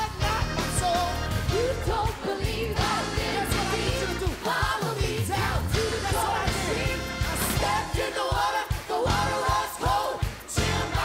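Live church band playing an upbeat praise number with driving drums and bass, voices singing over it.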